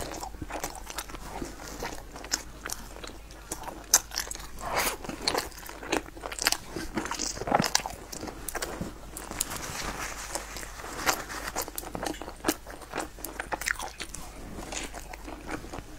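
Close-miked eating sounds: a person bites into and chews soft glazed bread, with sharp crackly crunches and clicks throughout, loudest about four seconds in.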